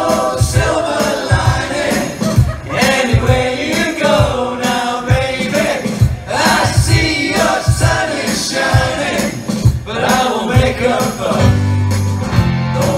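Live pop-rock covers band playing: sung vocals, with several voices singing along, over electric bass, electric guitar and keyboard with a steady beat.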